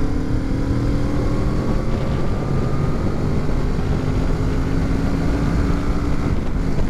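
Kawasaki Z650's parallel-twin engine pulling under acceleration, its note climbing slowly in pitch, over heavy wind rush on the helmet microphone. The note breaks off near the end at a gear change.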